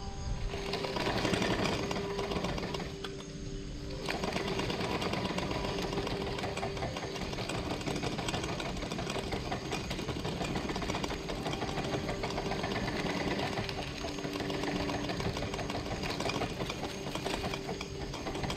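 Vietnamese kite flutes (sáo diều) on a flying kite sounding steady low notes that fade in and out with the wind, over rough wind noise.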